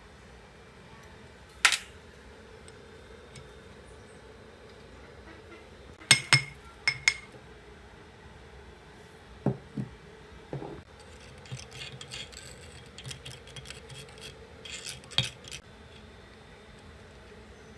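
Metal-on-metal clinks and taps from a hammer and screwdriver on the rusty cast-iron housing and end cover of an old pond aerator motor being taken apart. There are a few sharp, ringing strikes about six seconds in, duller knocks a few seconds later, then a run of small clinks and scrapes.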